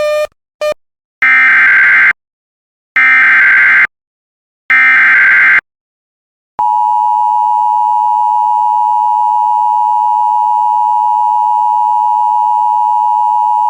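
Emergency Alert System alert opening: two short beeps, then three roughly one-second bursts of the digital SAME header data with a second of silence between each. The long steady EAS attention tone begins about six and a half seconds in.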